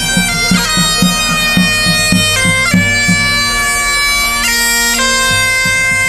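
Bagpipes playing a marching tune, the melody stepping between held notes over a steady drone, with a drum beating a regular rhythm underneath.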